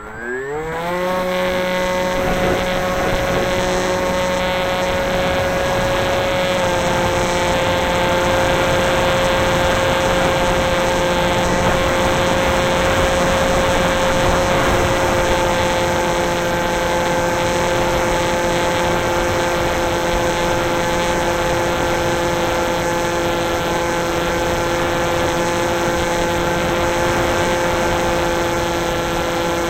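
The electric motors and propellers of an FPV aircraft, heard through its onboard camera's microphone. The whine rises in pitch as the throttle comes up in the first second, then holds at a steady high pitch, shifting slightly a few times.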